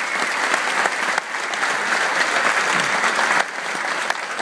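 Audience applauding at the end of a song, a dense, steady clapping.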